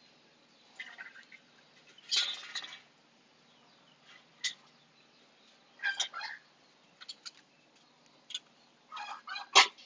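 Six-week-old Husky puppies giving short, high whimpers and yips at scattered moments, the loudest about two seconds in, with a sharp knock near the end.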